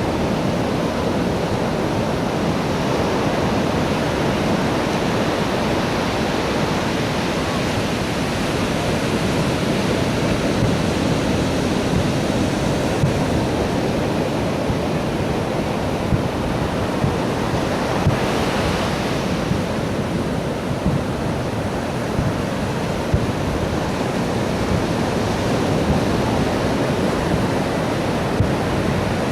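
Steady rushing noise of surf and wind on the microphone, with a few faint pops.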